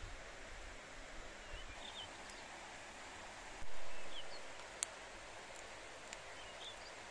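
Steady rush of a river under the open forest, with small birds chirping now and then. A sudden louder noise swells about three and a half seconds in and fades over about a second, and a single sharp click follows about a second later.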